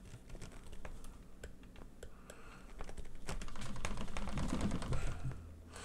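A cardboard box being worked open with a knife. Scattered small clicks and taps, then a louder stretch of scraping and rustling on the cardboard through the middle and second half.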